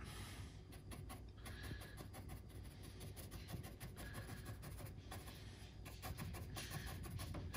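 Faint, quick irregular tapping and scratching of a small, nearly dry paintbrush dabbing chalk paint highlights onto a painted wooden dresser drawer.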